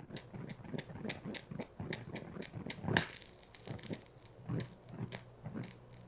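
Burning plastic rope dripping flaming drops of molten plastic, the falling drops making an irregular run of short ticks and zips with crackling, and one louder snap about three seconds in.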